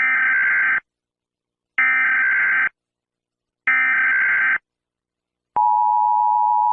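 Emergency Alert System (EAS) header: three identical screechy bursts of digital data tones, about a second long and two seconds apart. About a second and a half before the end, the steady two-tone EAS attention signal starts, announcing a new alert.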